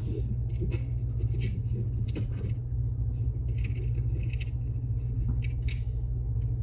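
Small metal lock pins clicking and scraping faintly, a key pin and driver pin from a Mul-T-Lock Classic Pro being worked against each other to feel for catching undercuts, over a steady low hum.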